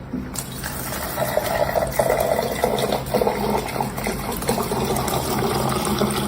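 Steady running water, like a tap or shower running, with a low hum underneath.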